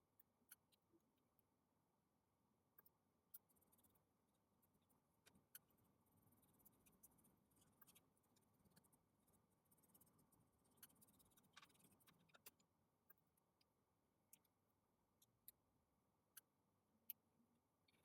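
Near silence, broken by faint small ticks and clicks here and there, about a dozen in all.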